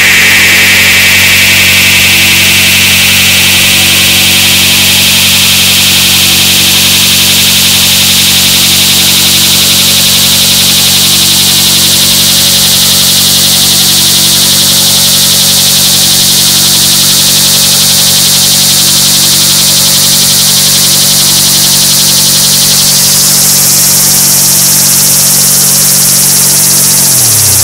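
Loud electronic noise drone from a live synthesizer set: steady low tones under a band of hiss that slowly rises in pitch and jumps higher about two-thirds of the way through. Near the end the low tones slide down in pitch.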